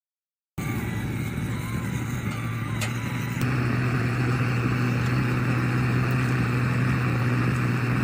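Steady motor hum with a rushing noise, starting abruptly and getting louder about three seconds in.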